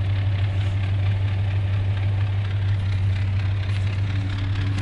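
Subaru Forester's flat-four engine running steadily with a low, even hum, the car stuck in deep mud.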